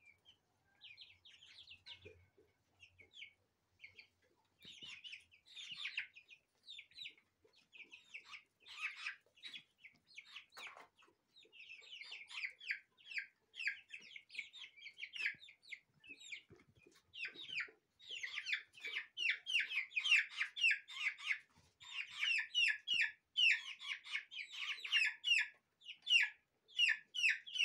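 A flock of month-old Brahma chicks peeping: many short, high chirps, scattered at first, then coming thick and louder from about halfway through.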